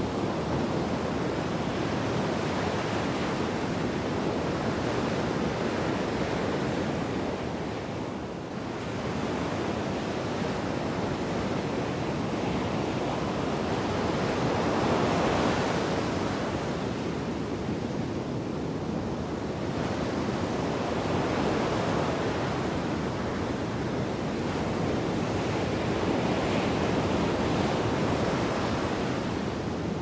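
Storm surf on the Black Sea breaking and washing up a pebble beach, a continuous rushing noise. It swells and eases with the waves and is loudest about halfway through.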